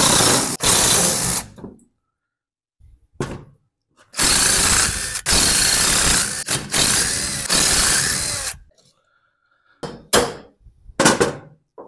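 Cordless impact driver running in bursts as it backs out the crankcase screws of a small two-stroke chainsaw engine: a short burst at the start, then a longer one of about four seconds with brief stops. Near the end a hammer knocks on the aluminium crankcase a few times to split it.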